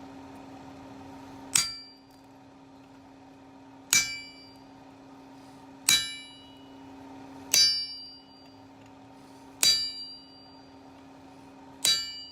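Hammer striking a chisel to split a metal bar down its centre, six ringing clangs about two seconds apart. A steady hum runs underneath.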